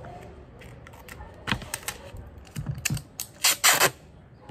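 Clear adhesive tape pulled off the roll in two short, loud rips near the end, after a few light clicks and taps of the roll and scissors.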